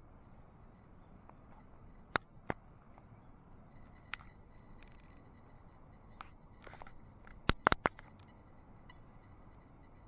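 Sharp clicks from handling and pressing buttons on a Feiyu Pocket handheld gimbal camera: a pair about two seconds in, a softer one around four seconds, and a quick run of three about seven and a half seconds in. A faint thin whine from the gimbal motors sounds around four to five seconds.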